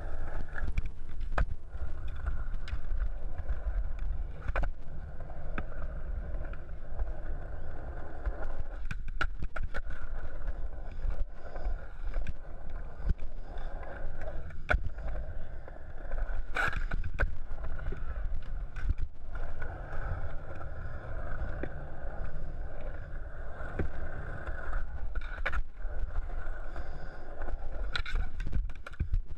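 Skateboard wheels rolling on concrete: a steady low rumble with scattered clacks and knocks from the board and wheels, heard through a helmet-mounted camera.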